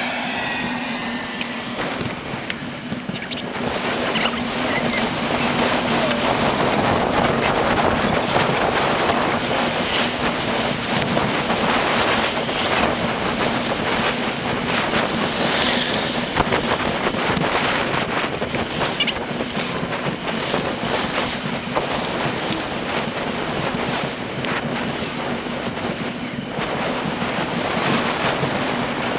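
Wind buffeting the microphone of an action camera mounted on a moving bicycle's handlebar, with road rattle and many small clicks and knocks, all sped up to four times normal speed.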